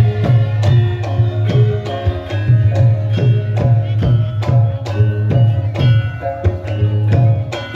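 Live Javanese gamelan music: quick, regular strokes on the kendang hand drum over struck metallophone notes and a steady low drone.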